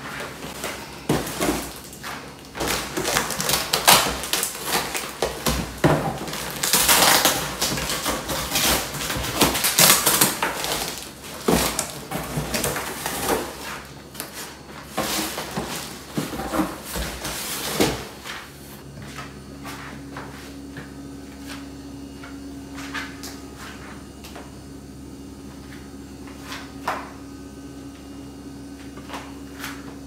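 A cardboard delivery box and the grocery packaging in it being handled: loud rustling, scraping and knocks of cardboard flaps and bagged groceries. About 18 seconds in the handling stops, leaving a steady low hum with a few light taps.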